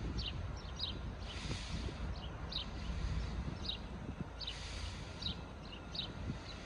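Small birds chirping: short, high, downward-sliding chirps, one or two at a time at uneven intervals, over a steady low rumble.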